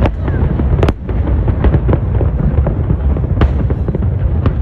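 Fireworks display going off in quick succession: a dense run of sharp bangs and crackling pops over a continuous low rumble, with one especially sharp crack about a second in.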